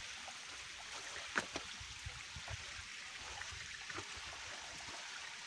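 Stream water running steadily, with a few faint knocks, the sharpest about a second and a half in.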